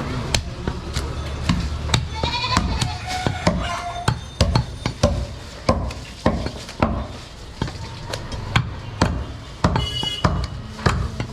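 Butcher chopping through a goat leg: repeated sharp chops at irregular intervals, roughly one every half second to second. A goat bleats about two seconds in and again near the end.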